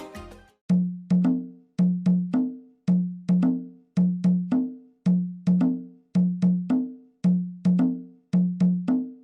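A lone percussion instrument struck in a repeating rhythm: short pitched knocks on two low notes, in groups of two or three strokes, about one group a second. Full band music fades out just before the first stroke.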